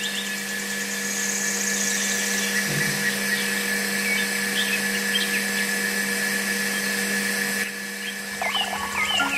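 Small homemade electric water pump motor running with a steady hum and whine. Birds chirp in the background, and music comes in near the end.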